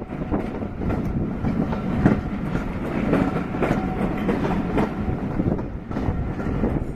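Passenger coaches rolling past at low speed, their steel wheels clattering with irregular sharp clicks over rail joints and points, over a steady rumble.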